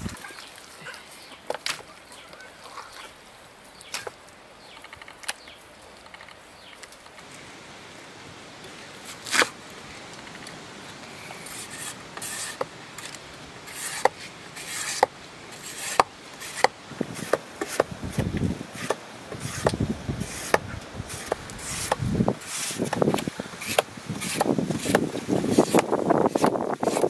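Sharp knocks and scraping on wood, sparse at first, then coming fast and repeatedly through the second half.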